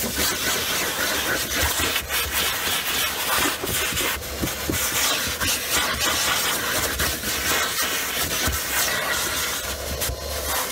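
Vacuum cleaner running while its hose nozzle is drawn over ribbed boot carpet, a steady rush of sucked air with uneven scraping and rubbing as the nozzle drags across the ridges.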